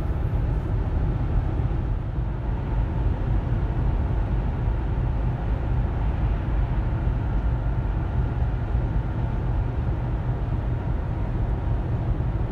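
Steady deep rumble of tyre and road noise inside a car's cabin at highway speed.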